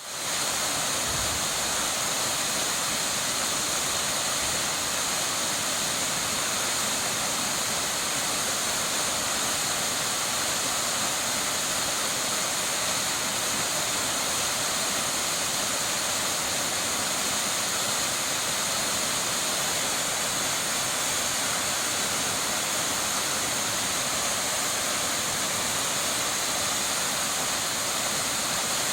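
A waterfall pouring: a steady, unbroken rush of falling water.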